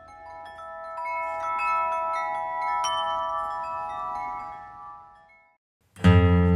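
Chimes: a shimmer of bright, ringing tones, struck several times in the first three seconds, ringing on and fading out at about five and a half seconds. Near the end, acoustic guitar music starts.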